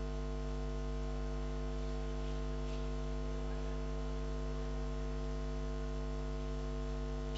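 Steady electrical mains hum with a stack of evenly spaced overtones, unchanging throughout.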